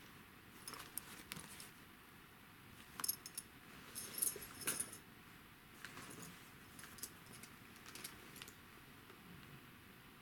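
Metal snap hook and ring on a fabric drawstring pouch clinking and jangling as the pouch is handled and set aside: scattered light clicks, with two brief bursts of jingling about three and four seconds in.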